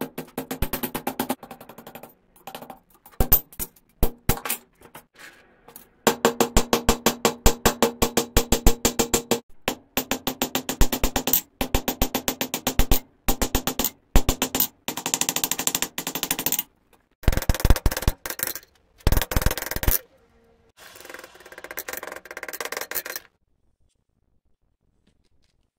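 Hand hammer striking a red-hot steel bar on an anvil in quick runs of blows, several a second, with short pauses between runs; the anvil rings with each strike as the bar's end is forged into a scroll. The hammering stops a few seconds before the end.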